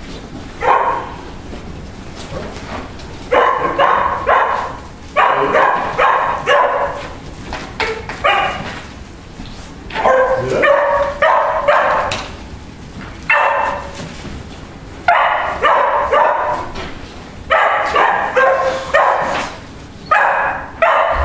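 A dog barking in repeated runs of several sharp barks, starting about three seconds in and recurring every second or two.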